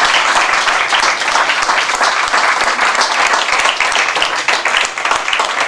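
Audience applauding, many hands clapping steadily and densely.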